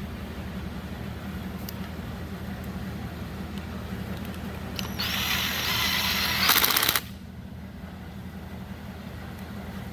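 A power screwdriver whirs for about two seconds midway, over a steady low hum. It is driving in screws of the oil-pump cover on an Echo top-handle chainsaw.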